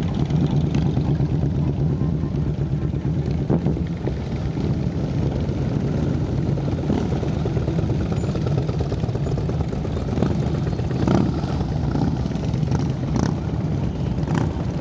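A procession of large touring motorcycles passing one after another at low speed, their engines giving a steady deep rumble, with a brief louder swell about eleven seconds in.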